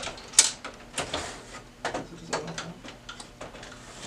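Plastic imaging unit of a Lexmark MS810 laser printer being slid along its guides into the printer: a series of short plastic knocks, clicks and scrapes.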